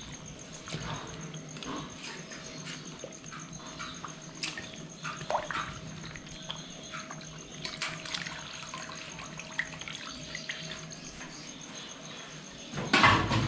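Broth sloshing and dripping in a large metal cooking pot as pieces of meat are lifted out with a steel ladle, with scattered light clinks of utensils on metal. A louder burst of noise near the end.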